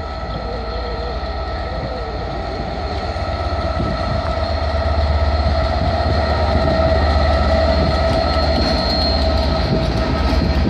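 DB Class 67 diesel-electric locomotive 67029 (a two-stroke EMD V12) running past hauling passenger coaches: a steady engine rumble with a high whine over it, growing louder as it draws level about five seconds in. Near the end the coaches' wheels start clicking over the rails.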